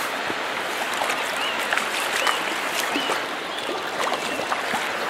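Stream water rushing steadily, with a few short high chirps over it.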